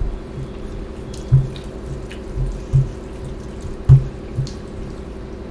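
Close-miked hand eating: wet squishing of fingers mixing rice with curry on a steel plate, along with chewing. There are about five short, low thumps, the loudest about four seconds in.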